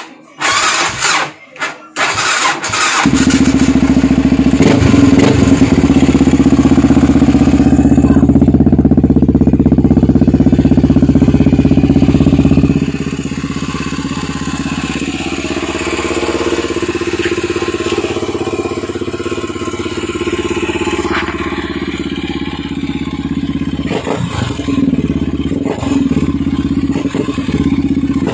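Yamaha TT-R250's single-cylinder four-stroke engine starting after a few short bursts, catching about three seconds in and running at a raised speed, then settling to a lower, steady idle about thirteen seconds in.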